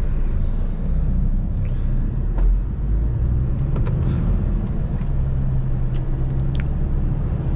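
Semi-truck's diesel engine heard from inside the cab as the truck pulls away, a steady low rumble with a few light clicks and rattles.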